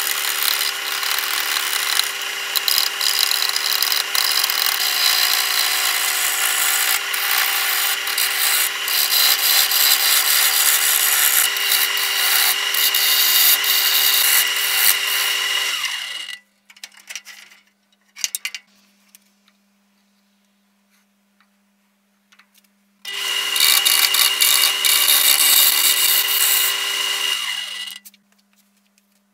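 Wood lathe running while a hand-held flat tool cuts a spinning wooden handle blank: a steady hiss of shaving wood over the motor's hum. It stops about 16 seconds in, leaving only a faint hum, then comes back for about five seconds and stops again near the end.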